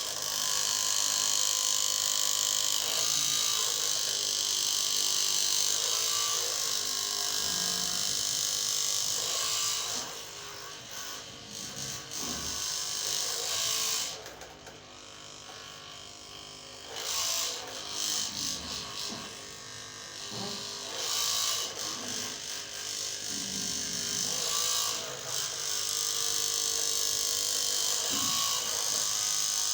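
Handheld electric massager buzzing: a steady motor drone, running for the first ten seconds, then stopping and starting in short spells, then running steadily again near the end.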